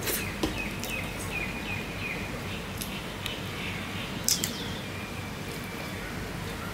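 A small bird chirping, a quick run of short repeated chirps over the first couple of seconds, with a few sharp clicks and smacks from eating by hand, the loudest a double click a little past four seconds in.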